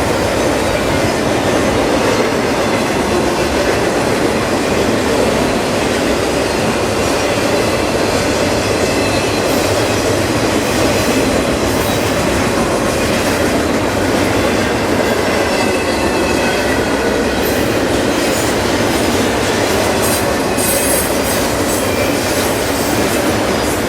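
Freight train cars rolling past at speed: a steady, loud rumble and rattle of steel wheels on the rails, with short high wheel squeals in the second half.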